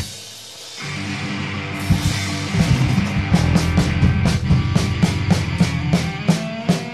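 Rock band playing live: drum kit, bass guitar and electric guitar, with no vocals. The band drops out briefly at the start, the bass and guitar come back in just under a second in, and steady drum hits rejoin about two seconds in.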